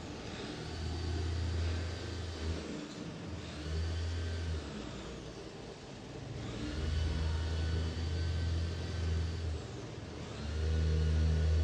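Road traffic passing, with several vehicles going by one after another, each swelling in a low rumble with a faint engine whine.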